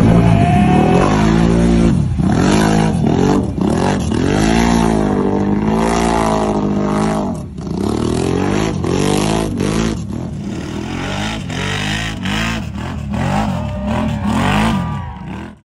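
Can-Am Outlander 1000 ATV's V-twin engine revving hard, its pitch rising and falling over and over every second or two. The sound cuts off abruptly just before the end.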